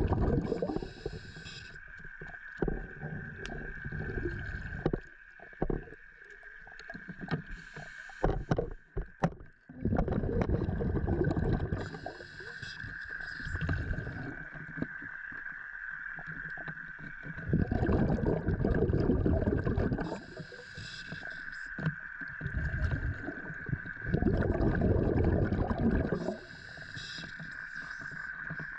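Scuba regulator breathing underwater: a long rush of exhaled bubbles about every seven seconds, each followed by a short hiss of inhalation, over a steady high-pitched hum. A handful of sharp clicks come about nine seconds in.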